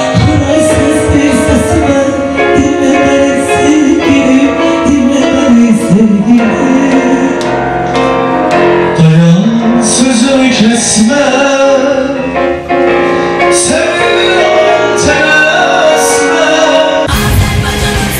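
A woman and a man sing a slow duet to keyboard accompaniment. Just before the end, a loud rush of noise cuts across the music.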